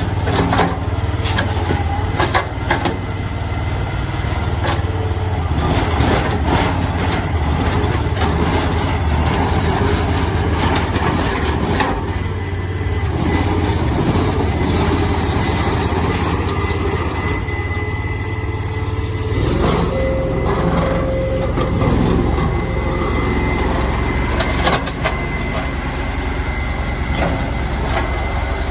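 27 HP Rato gas engine of a mini skid steer loader running steadily, with scattered knocks and clanks from the machine. The engine note changes about two-thirds of the way through.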